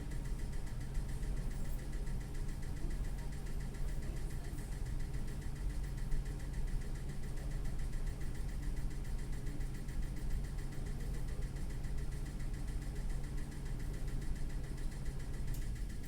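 Drinking water fountain making a steady, rapid, pulsing mechanical hum, the 'hyperventilating' it fell into after being bumped, with a single click near the end.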